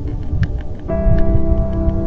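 Background music with sustained synth-like chords over a heavy bass; the chord changes about a second in. A few faint clicks sound through it.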